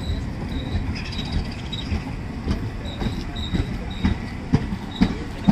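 Indian Railways passenger coaches rolling past at speed, their wheels clacking over the rail joints with a steady rumble underneath. The knocks grow sharper toward the end, and short high wheel squeals come through now and then.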